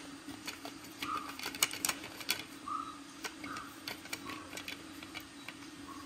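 Screws being threaded into a plastic drag-chain bracket and snugged with an Allen wrench: irregular light clicks and ticks of the tool and hardware, with a few short squeaks, over a steady low hum.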